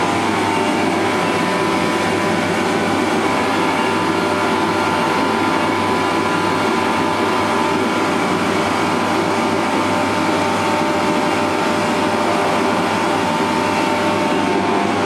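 Forced-air 'rocket' (torpedo) space heater running: a steady, noisy rush of fan and burner with faint steady tones through it.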